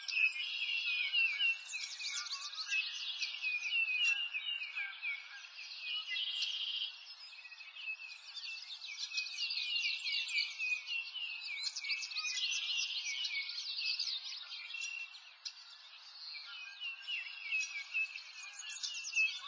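Dense chorus of small birds chirping and twittering, many quick downward-sweeping notes overlapping without a break; no low sounds underneath.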